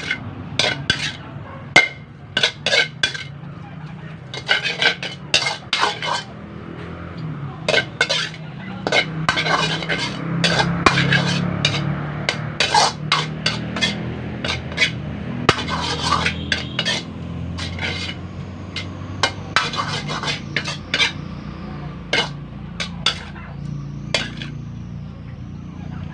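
Metal ladle knocking and scraping against a metal wok as noodles are stirred and tossed, in quick runs of sharp clanks.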